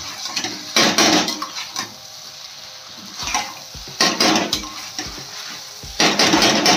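Perforated metal spoon scraping and stirring okra and potatoes in a stainless steel kadai, in four or five separate strokes: the final stir-fry on high flame.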